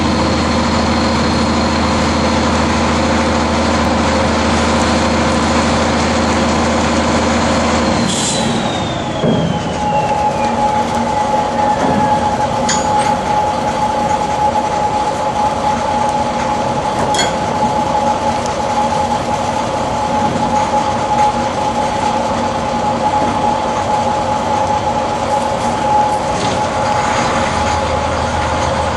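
Heavy machinery running steadily with a low hum and a high whine. About eight seconds in the whine glides down in pitch and a steadier, lower whine takes over, with a couple of sharp clicks.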